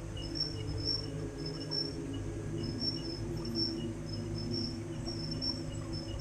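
Insects chirping in short, rapidly repeated high pulses, over a low steady hum.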